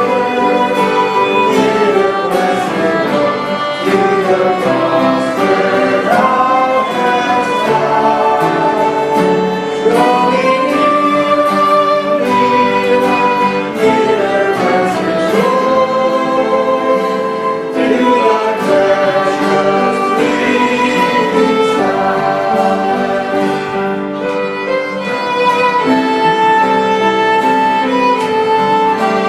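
Hymn music: a bowed string instrument carrying a sustained, wavering melody over accompaniment, with voices singing.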